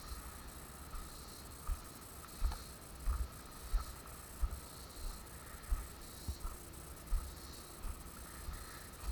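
A steady chorus of insects with a regular pulsing swell, over low thumps about one and a half times a second from footsteps as the camera is carried along.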